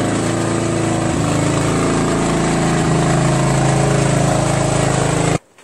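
Riding lawn tractor's engine running steadily under way, cutting off suddenly near the end.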